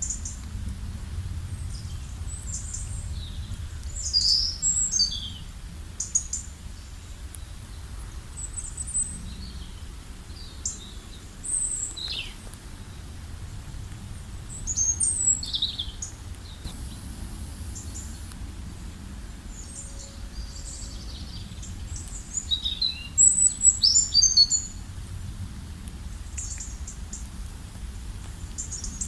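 Small birds chirping and calling in short, scattered high-pitched notes and quick sweeps, coming in bursts, with the busiest and loudest spell near the end. Under them runs a steady low rumble.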